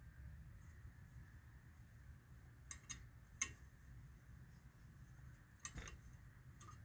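Near silence with a few faint metallic clicks and clinks, a couple around the middle and a couple near the end, as a valve spring compressor is worked loose by hand on a motorcycle cylinder head.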